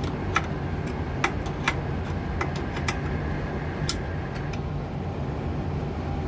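Sharp, scattered metal clicks and ticks of hand tools and fittings as manometer test hoses are taken off a gas furnace's gas valve pressure ports, over a steady low hum.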